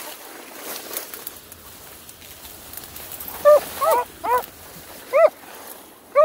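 Small hound dogs barking, in short yelps that rise and fall in pitch. About five come in the second half.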